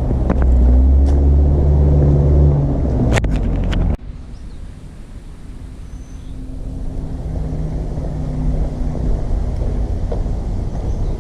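Road traffic: motor vehicle engines running past with a low rumble and a few clicks. About four seconds in the sound cuts off suddenly to a quieter stretch, then grows louder again as another vehicle comes closer.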